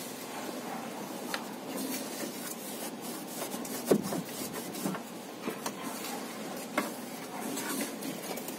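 Rubbing and scraping sounds with scattered light clicks and one louder knock about four seconds in.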